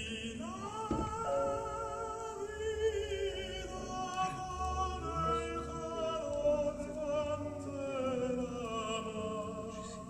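Operatic singing played back over a hi-fi system of Blumenhofer horn loudspeakers driven by a Trafomatic tube amplifier: a voice holding long notes with wide vibrato over steady accompaniment, heard in the room.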